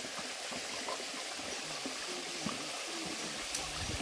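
Small mountain stream running over granite rock, a steady even rush of water. A low rumble comes in near the end.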